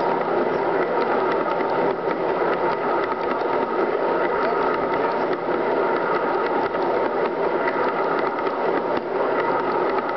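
G scale model coal hopper cars rolling past at track level, their metal wheels making a steady clatter of rapid clicks on the rails, with a faint steady whine underneath.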